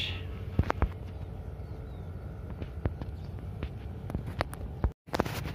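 Footsteps on a dirt path, with light irregular crunches and clicks about two a second over a low steady outdoor rumble. The sound cuts out for an instant about five seconds in.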